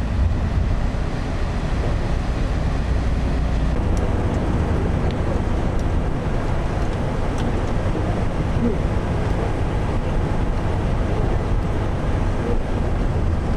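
Steady road noise from inside a vehicle moving at highway speed: a deep, constant rumble of engine and tyres with a hiss of wind over it.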